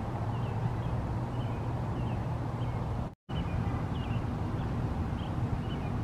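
Small birds chirping now and then over a steady low background rumble, with a brief dropout to silence about halfway through.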